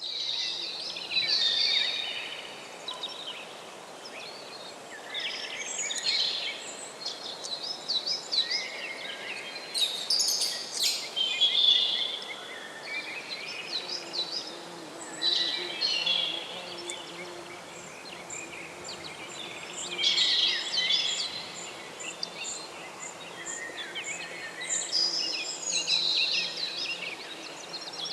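Forest ambience: songbirds singing in short, repeated phrases every few seconds, over a soft, steady background rush.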